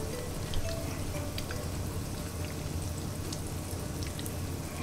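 Breadcrumb-coated bream fillet frying in hot oil: a steady sizzle with scattered small pops and crackles.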